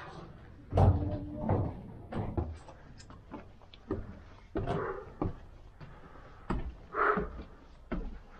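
Irregular footsteps and knocks, a thump or two every second, some of them heavy.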